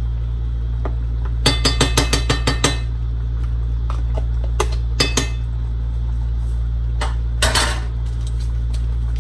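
Metal spoon clinking against a cooking pot and containers: a quick run of about eight taps over a second, then a few scattered clinks and knocks, over a steady low hum.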